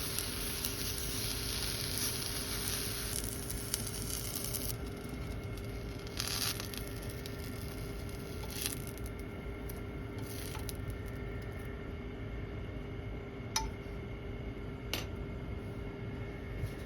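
Eggplant and green peppers sizzling in a frying pan, the sizzle dying away about five seconds in. After that, a few scattered clinks and taps of kitchen utensils over a faint steady hum.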